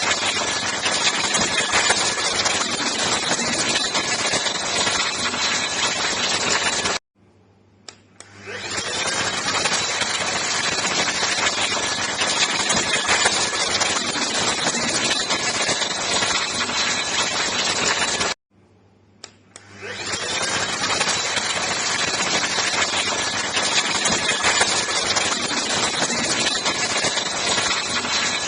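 Cordless handheld vacuum cleaner motor running steadily with a high whine. It stops abruptly twice, and each time, after about a second of quiet and a click, it spins back up to full speed.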